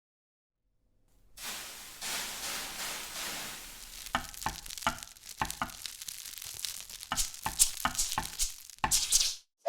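Sizzling hiss with irregular crackling pops, like food frying in a hot pan. It starts suddenly after a second of silence, and the pops grow more frequent and louder before it stops just before the end.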